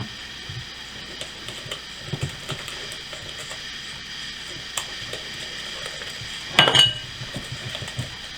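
A utensil stirring wet batter in a bowl, with light scraping and small clicks. About two-thirds of the way through comes a louder ringing clatter of metal against the bowl.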